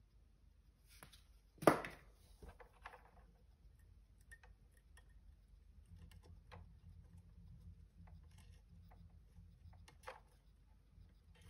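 Quiet handling sounds while a wire is soldered onto a speaker terminal: one sharp tap a little under two seconds in, then faint small clicks and rustles, with a faint low hum in the second half.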